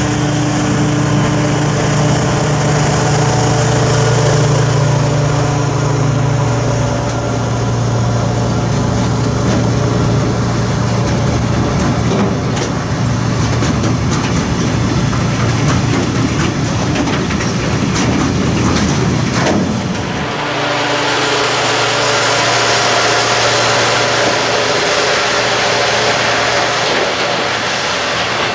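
A diesel locomotive's engine running under load as it hauls a freight train of silo wagons past. About two-thirds of the way through, the engine fades and the wagons' wheels roll by with clicking over the rails and a steady rushing hiss.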